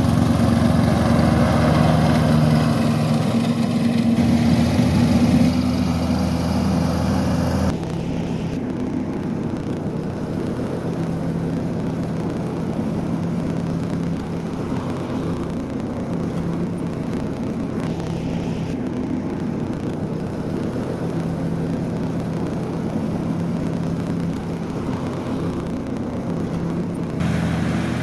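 Riding lawn mower engine running steadily as the John Deere D105 drives over the lawn. About eight seconds in the sound drops abruptly to a slightly quieter, steady run.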